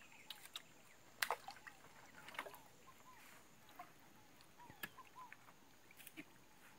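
Faint water dripping and sloshing as a fishing net is hauled by hand out of the river into a wooden canoe, with a few sharp clicks and knocks, the loudest about a second in.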